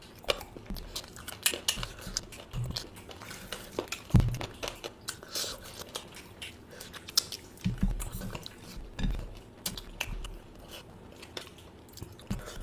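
A person biting and chewing food close to the microphone: irregular mouth clicks and smacks, with an occasional clink of dishes and a sharper knock about four seconds in.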